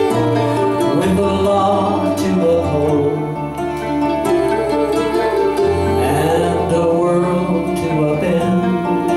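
Folk band playing a song live: acoustic guitar, mandolin, bass and keyboard.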